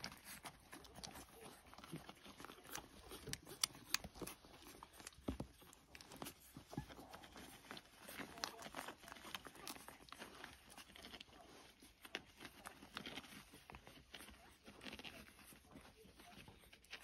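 Two-week-old Lancashire Heeler puppies nursing from their mother: faint, irregular suckling clicks and smacks, with small puppy noises and shuffling on a blanket.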